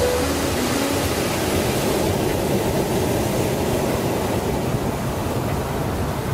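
Ocean surf washing up a sandy beach, a steady rush of waves. The last soft musical notes fade out in the first half second.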